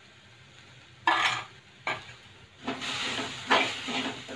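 A metal spoon stirring soaked peanuts through hot salt in a kadhai to roast them: gritty scraping strokes starting about a second in, then repeating roughly once a second.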